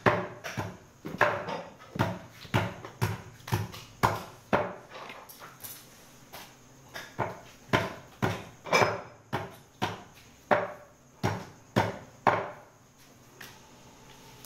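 Butcher's cleaver chopping on a block: a steady run of hard knocks about two or three a second, with a short pause midway, stopping near the end.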